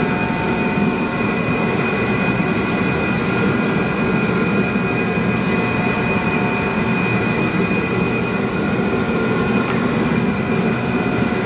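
Steady blowing rush and fan whine of a handheld electric heat gun running, warming the carbon-fibre spoiler as it is fitted, with a forced-air space heater running in the same workshop.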